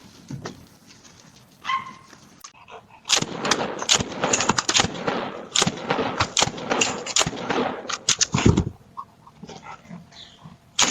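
A dog barking in a rapid, dense run for several seconds, starting about three seconds in, after a short higher call about two seconds in.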